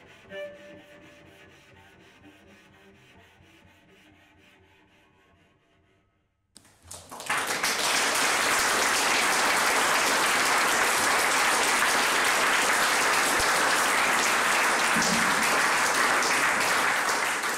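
The last cello and electronic tones of the piece fade away over about six seconds, then after a moment of silence the audience bursts into loud, steady applause about six and a half seconds in.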